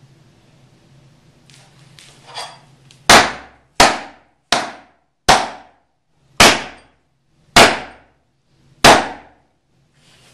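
A small wooden-handled hatchet chopping down onto a hard board on the floor: seven sharp blows at an uneven pace, each dying away quickly.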